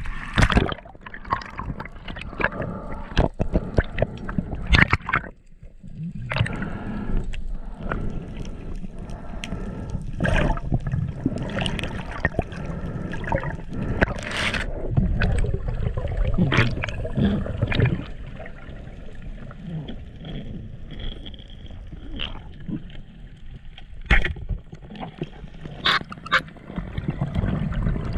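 Water sloshing and gurgling around a camera held at the surface, then the muffled noise of the camera underwater during a freedive, crossed by many sharp clicks and knocks.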